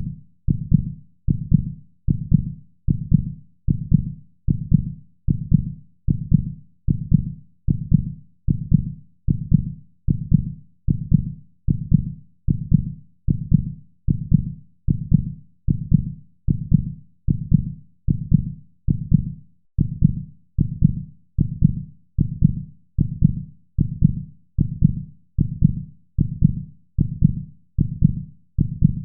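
Rhythmic heartbeat: steady low thumps repeating evenly at about 85 beats a minute.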